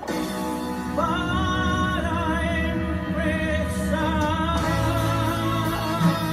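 A woman singing a ballad, holding long notes with vibrato over instrumental accompaniment.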